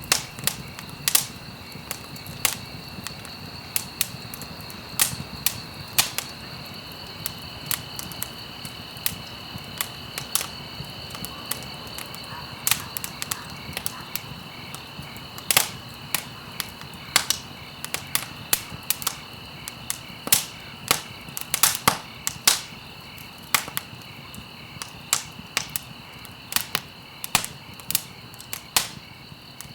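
Campfire crackling, with irregular sharp pops and snaps, at times several a second, over a low steady rush of flame. A steady high-pitched ringing sits underneath throughout.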